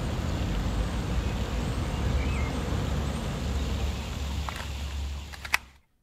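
Street ambience: a steady low rumble of city traffic, with a sharp click shortly before it cuts off near the end.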